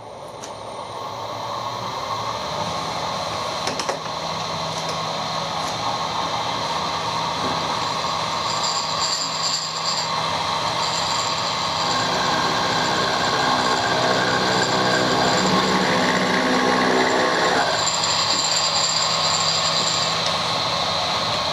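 Machine tool running and taking a light facing cut on a repaired casting's bronze weld build-up: a steady motor hum that builds up over the first couple of seconds, with a thin high-pitched cutting whine that comes and goes, and a louder pitched chatter from about 12 s that cuts off suddenly about 17 s in.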